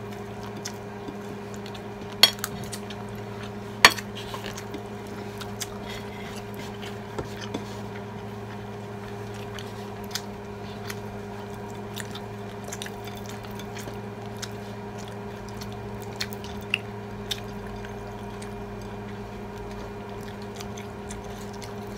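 Spoons and forks clinking and scraping on plates during a meal: scattered light clicks, with two sharper clinks about two and four seconds in. Under them runs a steady low hum.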